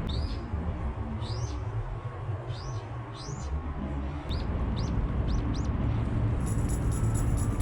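A small bird calling: a series of short chirps that rise and fall, spaced out at first and then coming quicker, over a steady low rumble.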